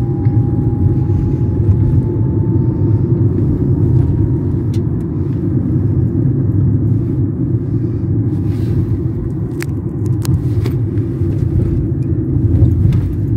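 Inside a moving car's cabin: steady low rumble of the engine and tyres on a rough, dusty road. A few sharp clicks come through, mostly in the second half.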